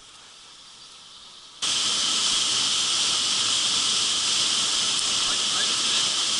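Steady rush of a shallow stream flowing over pebbles, a loud, even hiss that starts abruptly about one and a half seconds in after a quieter stretch.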